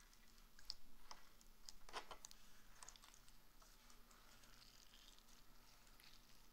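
Faint sticky clicks and crackles of slime being pulled and pressed apart by hand, densest from about one to three seconds in.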